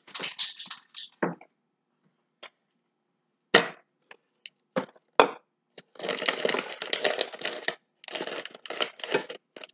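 Kitchen handling noises: two sharp knocks a second and a half apart, then a few seconds of dense crackling rustle in two stretches, like packaging being handled.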